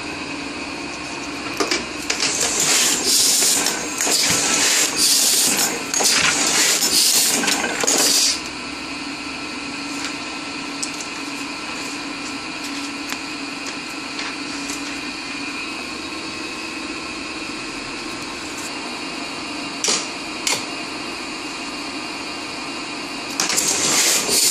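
Heidelberg Tiegel platen press running with a steady mechanical hum. Loud hissing bursts, each about a second long, come repeatedly between about 2 and 8 seconds in and again near the end.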